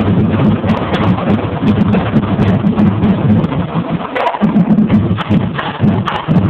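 Marching drumline playing a busy rhythm: deep bass drum tones with sharp higher hits on top. The low drums break off for a moment about four seconds in.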